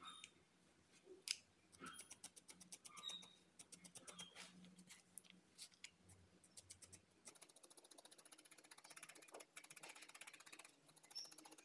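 Felting needle stabbing into wool over a foam pad: faint soft ticks, scattered among handling rustles at first, then a quick, even run of ticks from about seven seconds in as the needle works rapidly.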